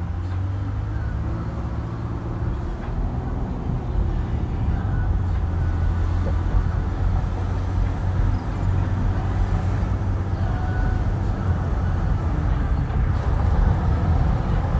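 Road and engine noise heard from inside a moving car's cabin: a steady low rumble that slowly grows louder.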